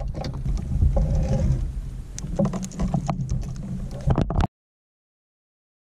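Knocks and rattles of a fish being handled aboard a fishing kayak, over a low rumble; the sound cuts off to dead silence about four and a half seconds in.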